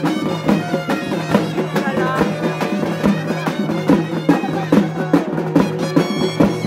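Traditional folk music: a wavering reed-pipe melody over a steady drone, with drums beating throughout.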